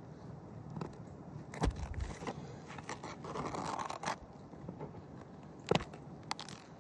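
Metal pry tool scraping and knocking against asphalt shingles while working at roofing nails that are overdriven and sunk into the shingle. There are a few sharp knocks, the loudest about a second and a half in and near the end, and a stretch of scraping around the middle.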